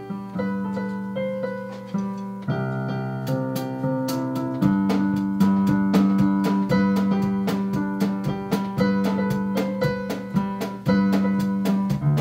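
Piano playing slow held chords with a gently moving melody, each note struck and then fading.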